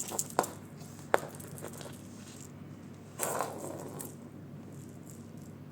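Cat toys being played with: a few light clicks and knocks, then a short rustling scrape about three seconds in.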